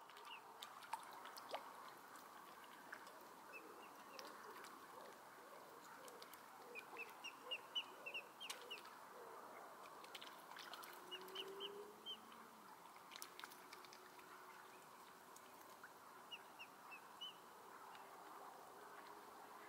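Faint high peeping of mute swan cygnets, in short runs of several quick calls with pauses between, over a faint steady background hiss.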